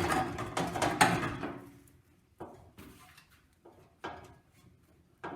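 Metal clattering and clunking as a Massey Ferguson 135's radiator is shaken and shifted to work it free, a busy rattle for about the first second and a half, then a few single knocks.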